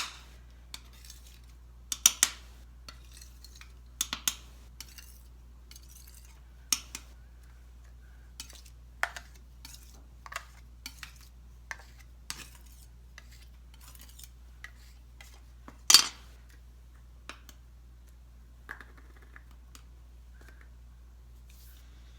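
Irregular clinks, taps and knocks of small hard objects being handled and set down, over a steady low hum. The loudest knock comes about sixteen seconds in.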